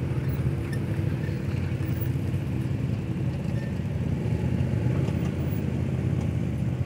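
Side-by-side UTVs driving slowly past close by, their engines running in a steady low drone, with a line of cars and pickups following.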